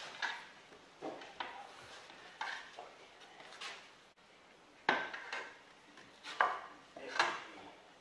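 Steel pry bars clanking and scraping against the rubber track and undercarriage of a John Deere CT322 compact track loader as the track is levered over the front idler. It comes as a string of irregular metallic knocks, the sharpest about five seconds in and twice more near the end.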